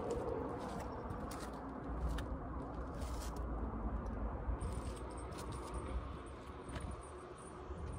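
Wind buffeting the microphone in a steady low rumble, with a plastic bag rustling and crackling in short bursts.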